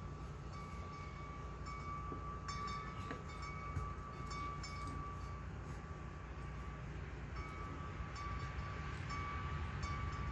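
Large tubular wind chime ringing in the breeze: its tubes are struck again and again, and the ringing tones overlap and carry on, over a low steady rumble.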